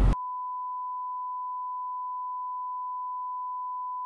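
A steady censor bleep: one unchanging pure tone at about 1 kHz, edited in over the audio to hide a spoken phone number.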